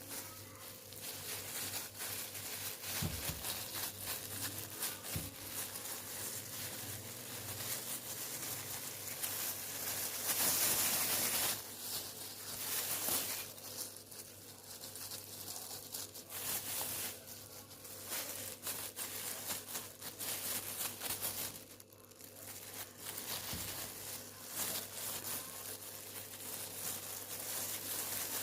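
Irregular rustling and crinkling handling noise, louder in a patch about ten seconds in, over a steady low electrical hum.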